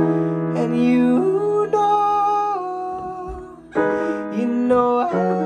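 A man singing long held notes that slide between pitches, in two phrases with a short break about three seconds in, over a strummed acoustic guitar.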